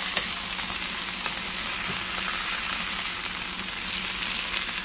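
Beef patties sizzling steadily in a hot nonstick frying pan, fat crackling with faint small pops.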